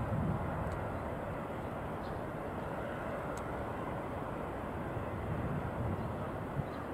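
Jet engines of a twin-engine airliner on the runway, heard from behind: a steady, even roar with a deep rumble.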